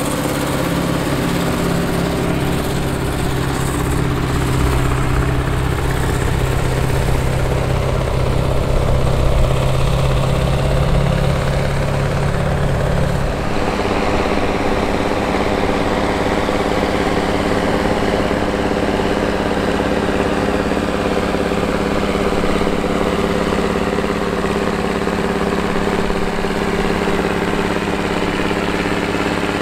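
Big articulated tractor diesels running steadily under load while pulling tillage implements. For the first half or so it is a Rome 475C's Caterpillar diesel. About halfway through the sound changes to a Steiger Cougar II ST-300's engine.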